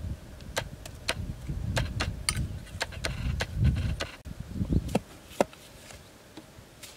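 Digging into a burrow in damp, clayey mud with a long wooden stick: dull thumps of the stick and soil, with many sharp ticks and clicks of clods and grit breaking loose. The activity is busiest at first and thins out near the end.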